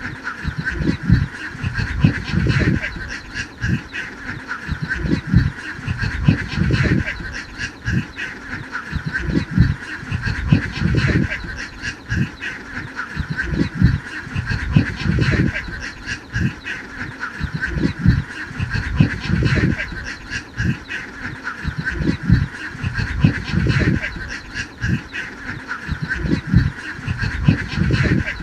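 A large flock of domestic ducks quacking all at once in a dense, continuous chorus, with irregular low thumps mixed in.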